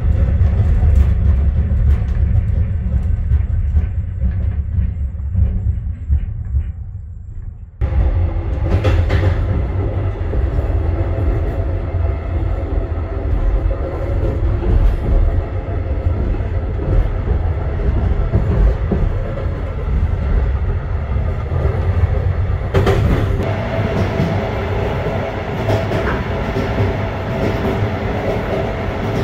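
Running noise of a Fadak passenger train heard from inside the carriage: a steady low rumble and rattle. It fades briefly, comes back suddenly about eight seconds in, and turns brighter and louder in the higher range near the end.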